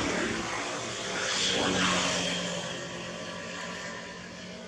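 A motor vehicle passing: its engine hum and rushing noise swell to a peak about two seconds in, then fade away.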